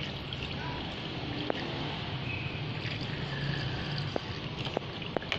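Water trickling and dripping, with a few light clicks.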